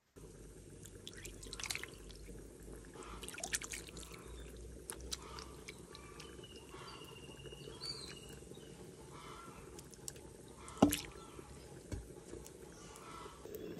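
A hand squeezing and kneading a wet shredded mixture in a clay pot of liquid: irregular squelches and drips, with one sharp knock near the end.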